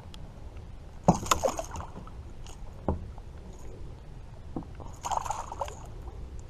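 A handful of sharp knocks on a kayak hull and two short bursts of splashing and scraping, the first about a second in and the second near the end, as a hooked bass is landed and thrashes.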